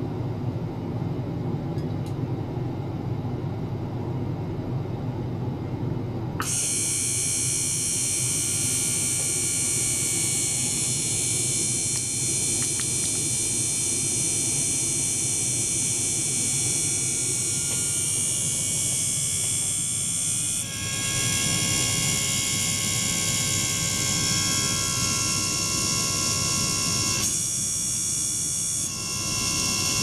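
A small liquid-circulation pump runs with a steady low rumble as water and bubbles churn through the tank. About six seconds in, a cluster of steady high-pitched whining tones from the ultrasonic setup starts up, and it changes pattern twice later on.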